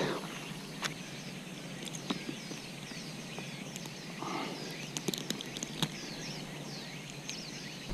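Outdoor ambience of many short, high-pitched chirping calls from small animals, repeating steadily, with a few faint clicks and a brief soft sound about four seconds in.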